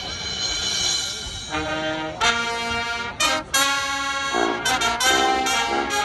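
Marching band brass section playing: a held chord for about a second and a half, then a run of loud, short accented chords with sharp breaks between them.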